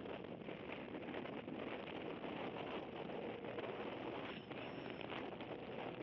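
Steady wind and road noise on a GoPro mounted outside a moving Toyota GT86, with no clear engine note.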